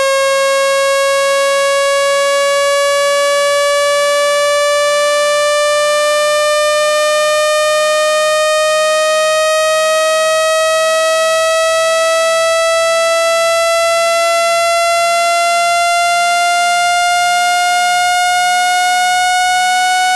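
Speaker-cleaning tone for pushing water out of a phone speaker: a loud, steady electronic tone rich in overtones, rising slowly and evenly in pitch.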